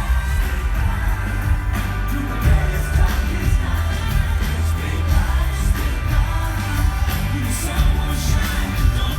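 Loud pop music with singing over a heavy, steady bass line.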